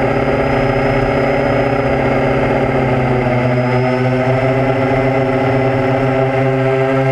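Electric motors and propellers of a camera-carrying drone in flight, heard through its onboard camera: a steady, loud multi-tone whine with a thin high tone above it, shifting slightly in pitch about halfway through.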